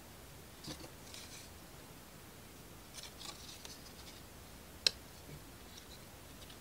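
Laser-cut plywood model-kit parts handled and pressed together: faint rubbing and scraping of wood on wood, with one sharp click about five seconds in.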